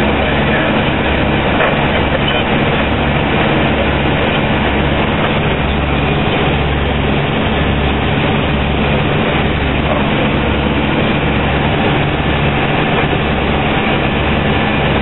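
Dash 8-300 cockpit on approach: the twin Pratt & Whitney Canada PW123 turboprops and their propellers drone loudly and steadily, with a low throb that swells and fades every couple of seconds, heard from the flight deck.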